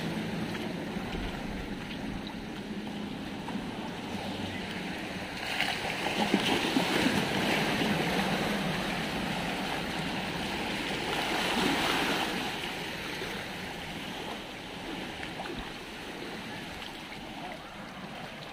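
Floodwater sloshing and splashing around vehicle wheels as they move through a flooded street, with two louder surges of churning water about six and twelve seconds in.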